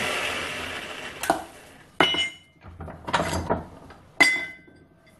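Cut pieces of an aluminium alloy wheel rim and a steel bench vise being handled: four sharp metal clanks about a second apart, each ringing briefly. A rush of noise dies away in the first second.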